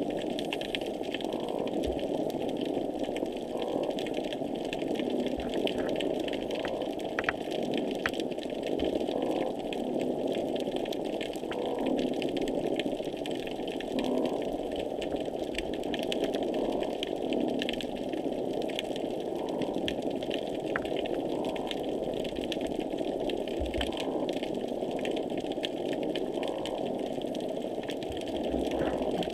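Underwater noise near a pier picked up by a hydrophone: a dense, steady rumble with a faint pulse recurring every couple of seconds and scattered sharp clicks. These are the repetitive noises heard just below the surface there, unusually intense on this dive.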